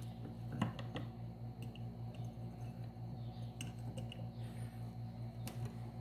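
Faint scattered clicks and rustles of hands handling a length of electrical wire and the plastic and metal parts of a desk fan's motor, over a steady low hum.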